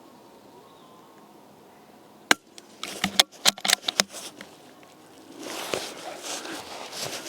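A single sharp crack of a .22 rimfire shot, followed within a second by a quick run of metallic clicks as the bolt of a CZ 452 is worked. A rustling, scuffing stretch follows near the end.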